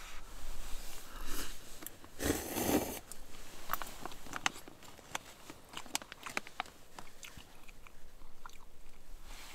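A person eating noodles: a loud slurp about two seconds in, then a run of short wet clicks from chewing and mouth smacks.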